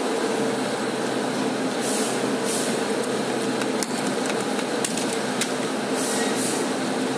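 Multi-slide CNC wire-forming machine bending steel wire into torsion springs: a steady mechanical hum with scattered sharp clicks from the tool slides and a few short hisses.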